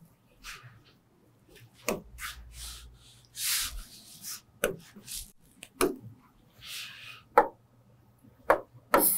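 Pen tapping and scratching on the glass of an interactive display board: about six sharp taps, with short scratchy strokes between them as lines and boxes are drawn.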